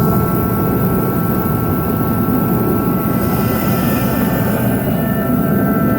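Craftsman 80,000 BTU kerosene and diesel forced-air heater running: a steady rush of fan noise and burner with a steady whine on top.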